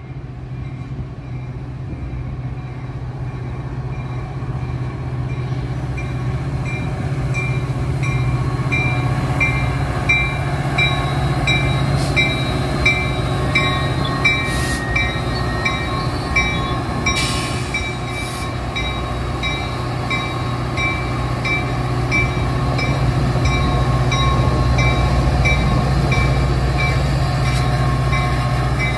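EMD F40PHM-3 diesel locomotive of a commuter train coming in at close range, its engine drone growing steadily louder, with a regular high ping about twice a second, like a locomotive bell. A few sharp clicks come in the middle.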